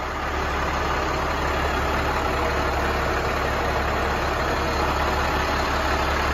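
International DT466 turbo diesel engine idling steadily.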